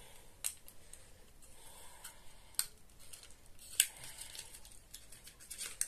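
Hands rummaging among small cosmetic packages and sample vials in a cardboard box: light rustling with a few sharp clicks, the loudest about four seconds in.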